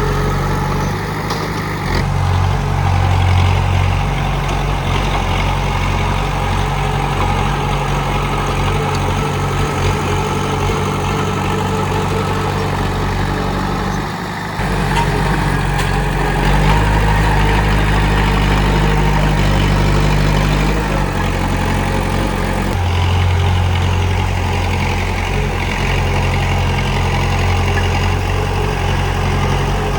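Komatsu D31P bulldozer's diesel engine running steadily, its low note shifting in pitch and load a few times, with a brief drop about halfway through.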